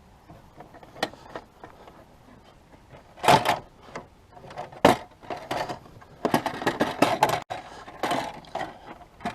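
Hard plastic body panel of a Can-Am Spyder being worked into place by hand: a sharp click about a second in, then irregular knocks, clatter and scraping, the loudest knocks a little over three seconds in and just before five seconds.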